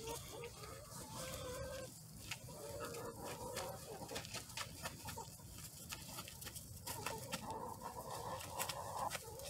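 Hens clucking softly, short pitched calls scattered through the flock.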